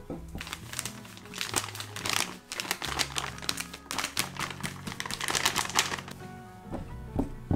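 Background music over a run of quick clicks, scrapes and crinkles as a silicone spatula works softened butter in a glass bowl and powdered sugar is tipped in.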